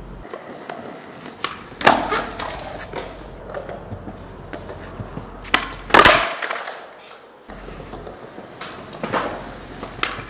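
Skateboard tricks on concrete: the sharp clack of the tail popping and the board hitting the concrete, with wheels rolling between. The loudest hit comes about six seconds in, with another clack about two seconds in and a lighter one near the end.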